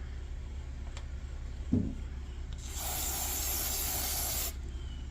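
A steady hiss of spray, about two seconds long, against the Coleman 200A lantern's nickel-plated generator during cleaning. A low knock comes shortly before it.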